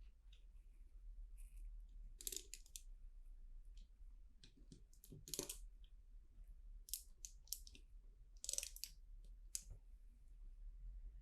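LEGO plastic bricks being handled and pressed together: scattered short clicks and brief rustles of pieces, with a few sharper clicks among them.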